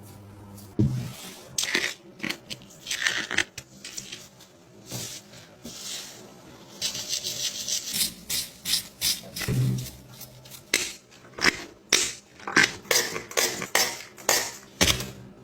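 Slime being squeezed and poked by hand: a run of short crackling, squelching pops, sparse at first and coming several a second from about eight seconds in.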